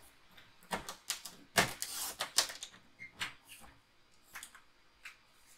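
Cardstock being cut and handled on the work table: a series of irregular clicks and short scraping, rustling strokes, loudest and busiest around two seconds in.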